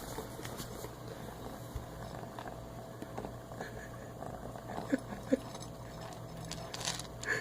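A pet wearing a cone collar eating: faint scattered clicks and small taps, with two sharper knocks about five seconds in.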